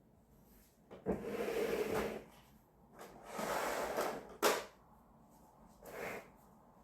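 A drawer slid open and shut twice, the runners scraping for about a second each time; the second push ends in a sharp knock as it closes. A shorter sliding rustle follows near the end.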